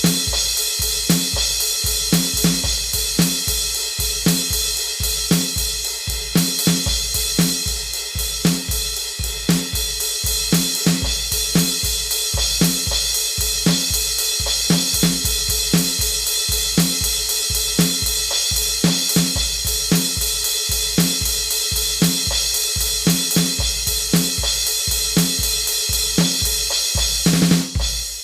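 A drum kit plays a steady rock beat on its own, with kick drum, snare, hi-hat and cymbals. The pattern breaks briefly near the end.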